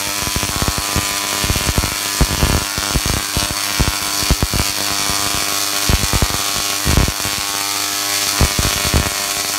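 Tesla coil firing, its sparks arcing onto a metal cage with a loud, steady buzzing crackle broken by many irregular sharper cracks.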